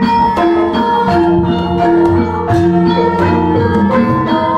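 A Javanese gamelan ensemble playing. Bronze metallophones and bonang gong-chimes are struck in a busy, steady run of ringing notes, over kendang hand-drumming and low gong tones.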